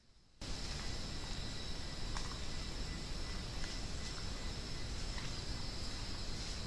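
Tropical rainforest insects making a steady high-pitched drone, with a thin steady whine and a few faint short chirps over a low rumble; the sound starts abruptly about half a second in.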